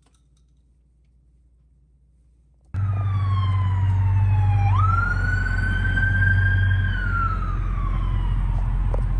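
A siren wailing, starting abruptly about three seconds in after near quiet. Its pitch falls, jumps up, then slowly rises and falls again, over a steady low rumble.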